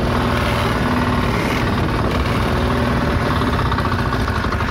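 Fishing boat's engine running steadily under way, with water rushing past the hull.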